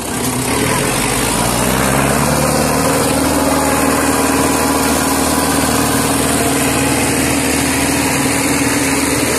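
Tractor diesel engine running at a steady speed, its pitch rising a little over the first two seconds and then holding.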